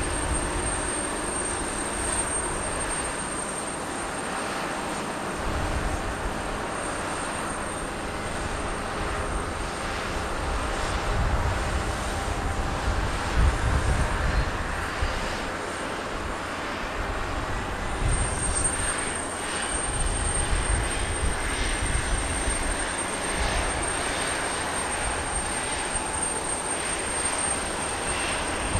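Boeing 737-800's jet engines running at low power on the ground: a steady high whine over a low, uneven rumble.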